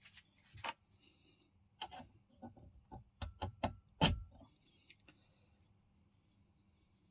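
A series of short clicks and knocks, with a quick run of three and the loudest about four seconds in, from copper pipes and fittings being handled and knocked together.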